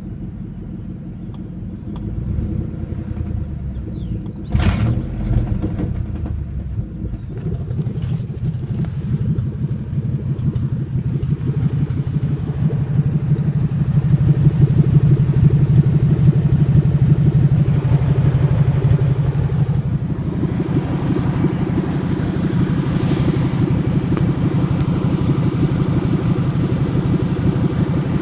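1997 Ford F-150's 4.6-litre V8 idling roughly, the rough idle whose cause the owner is trying to find. There is a sharp thump about four and a half seconds in, and the engine note shifts about twenty seconds in.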